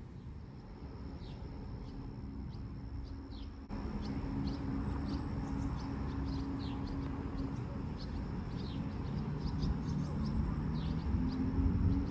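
Birds chirping, many short falling chirps repeated throughout, over a steady low droning hum. The background steps up in loudness abruptly about a third of the way through.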